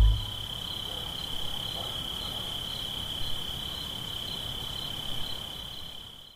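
Crickets trilling: one steady, unbroken high note over a faint background hiss, fading out at the very end.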